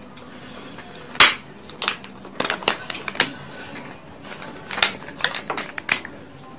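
Crisp crinkling and crackling of newspaper wrapping as a paper-wrapped rice parcel is handled and opened. There is a sharp crackle about a second in, then clusters of crackles.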